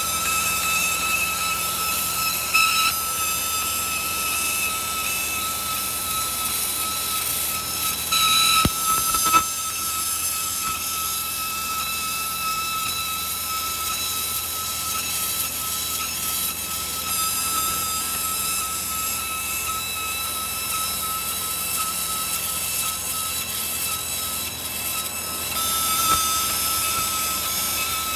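Fiber laser marking machine cutting a thin metal sheet: a steady high-pitched tone over a hiss as the beam traces the pattern. There are a few brief louder spells and one sharp click about nine seconds in.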